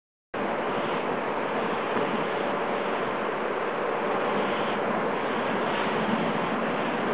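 Steady machinery noise of a robotic pick-and-place hot dog conveyor line running, with a faint steady hum. It cuts in abruptly just after the start.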